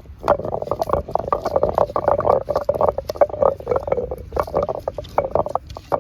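Rapid, irregular knocking strokes, several a second, from ginger and garlic being worked by hand during curry preparation.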